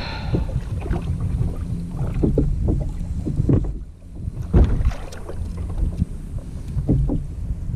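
Wind buffeting the microphone of a camera mounted on a kayak, a low rumble throughout, with scattered knocks of gear and handling against the kayak.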